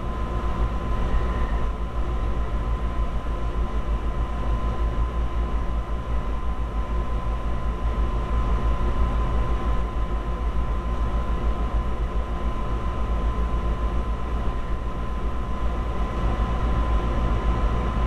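Steady low rumbling hum with a hiss over it and a thin, high steady whine, unchanging, with no voice.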